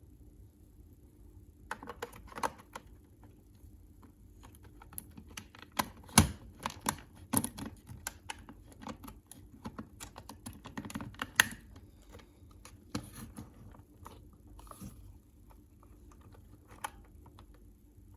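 Irregular run of small clicks and taps of hard objects being handled, starting about two seconds in and busiest in the middle.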